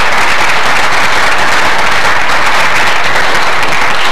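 Loud, steady applause from an audience clapping.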